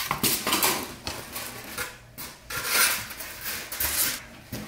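Flat-pack furniture panels and styrofoam packing being handled and shifted: irregular scraping, rustling and light knocks, with a short lull around two seconds in.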